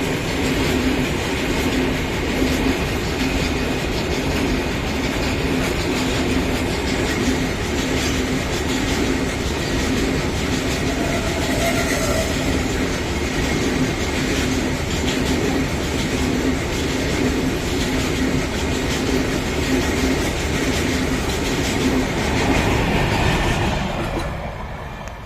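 Long goods train rolling past, its wheels clattering rhythmically over the rail joints. The sound fades away near the end as the train moves off.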